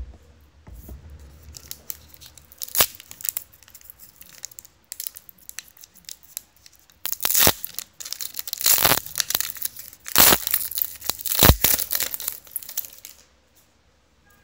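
Foil wrapper of a Panini Brilliance basketball card pack being torn open and crinkled. Light rustling and clicks at first, then from about halfway through a run of loud, sharp crackling rips that stop shortly before the end.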